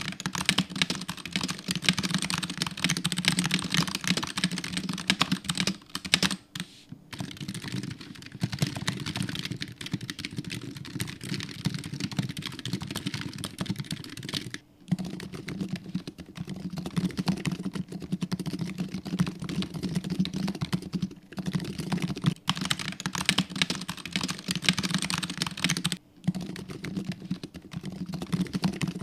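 Fast, continuous typing on Razer optical-switch keyboards, a dense stream of key clicks and keycap clacks. It is first on a Huntsman Tournament Edition with Gen 1 optical switches, then on a Huntsman Mini with Gen 2 optical switches, and last on a Huntsman V2 TKL with Gen 2 optical switches and sound-dampening foam, with brief pauses between them.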